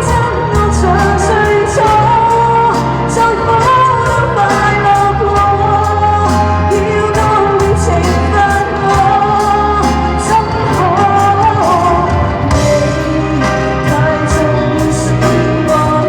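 Cantonese pop song playing: a sung melody over band accompaniment with bass and a steady drum beat.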